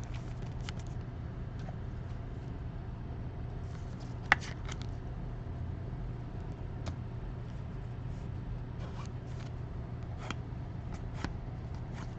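Trading cards being handled and flipped through, giving faint scattered clicks and rustles over a steady low hum, with one sharper click about four seconds in.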